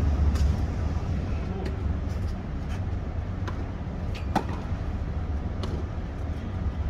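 Tennis rally: several sharp pops of rackets striking the ball, about a second or so apart, the loudest a little past halfway. A steady low rumble of wind on the microphone runs underneath.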